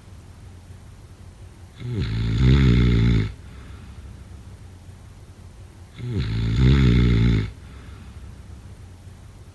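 A sleeper snoring: two long snores, each about a second and a half, about four seconds apart, with quiet breathing gaps between them.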